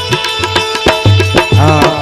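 Indian folk devotional music: hand-drum strokes in a steady rhythm, the low strokes gliding in pitch, over a held drone. A voice starts to sing or call out near the end.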